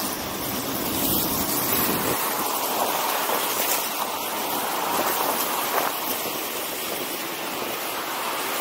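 Wind rushing over the camera microphone, mixed with inline skate wheels rolling on asphalt, as the skater speeds up to about 36 km/h. The noise is a steady, even rush.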